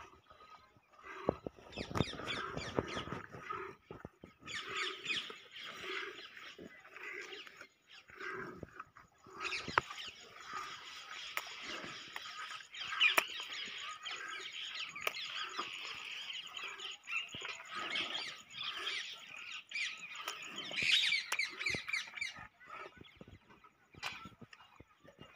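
Rhythmic squirts of milk hitting a steel pail as a water buffalo is hand-milked, in a farmyard with birds calling and chirping throughout.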